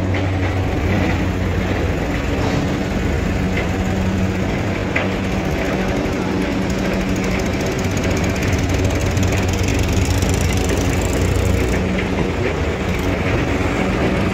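Powertrac Euro 50 tractor's diesel engine running hard and steady under heavy load, hauling a trolley heaped with about 500 quintals of sugarcane.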